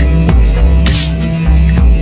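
Electronic background music with a heavy bass line and a steady beat.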